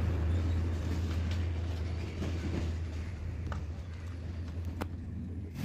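A steady low rumble of running machinery or an engine, with a couple of light metallic clicks from hand tools near the end.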